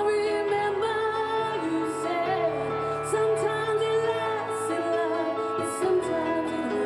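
A woman singing live over a backing track: long held, sliding vocal notes over sustained bass and keyboard chords.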